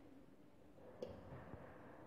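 Near silence, with a faint soft tap about a second in, as a spatula scrapes wet chicken paste out of a mixer jar into a ceramic bowl.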